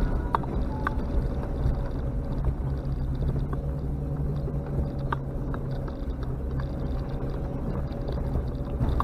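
Off-road vehicle's engine running steadily while driving, with occasional sharp knocks and rattles.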